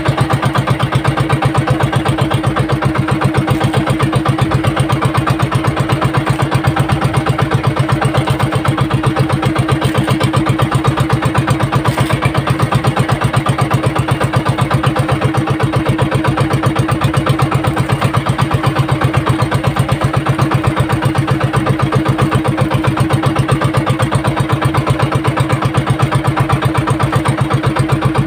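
Outrigger fishing boat's engine running steadily, with a fast, even pulsing beat.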